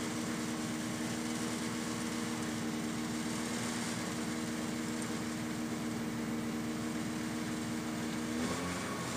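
Rally car engine idling steadily with the car standing still, heard from inside the cockpit; near the end the idle note wavers and settles a little lower.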